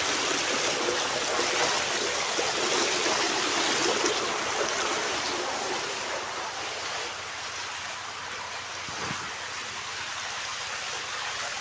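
Shallow water rushing over a sloped concrete weir, a steady splashing hiss that eases a little about halfway through.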